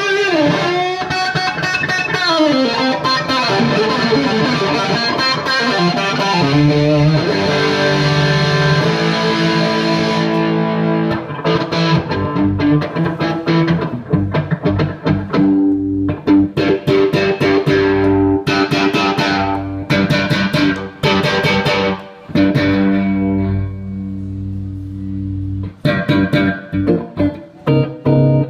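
Stratocaster-style electric guitar played through a Bad Cat Siamese Drive overdrive pedal into a 3rd Power amp. It opens with several seconds of bent-note lead lines, then moves to struck chords and single notes with short gaps between phrases.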